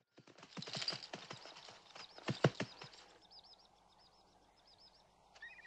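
Horses' hooves clopping in a quick, uneven run for the first three seconds, loudest at about two and a half seconds. Then birds chirp in a repeated high call, with lower chirps near the end.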